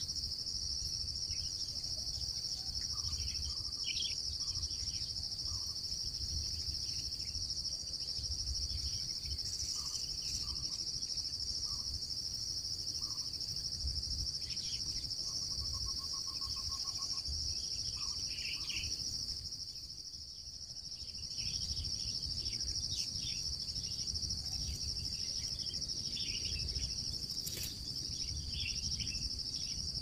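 Steady, high-pitched insect trill, cricket-like, running without a break over a low rumble. Faint scattered bird notes sound over it, including a quick run of short notes near the middle.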